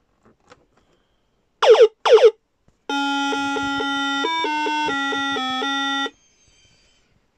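Electronic bleeps from the 1979 Ideal Electronic Detective game's built-in speaker: two quick falling whoops, then a buzzy electronic tune of short changing notes lasting about three seconds.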